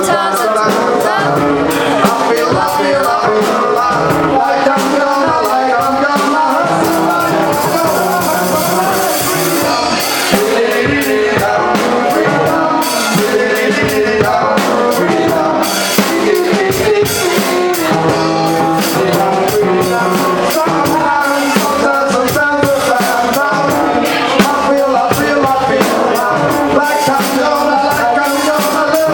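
Live jam band playing loudly: electric guitars over a drum kit's steady beat.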